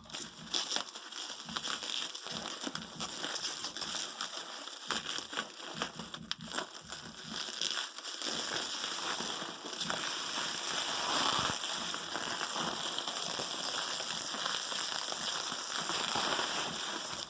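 Packaging being handled and unwrapped: continuous crinkling and crackling of wrapping material, with many small irregular rustles.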